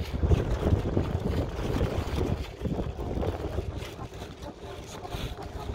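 Wind buffeting the microphone: an uneven, gusting low rush.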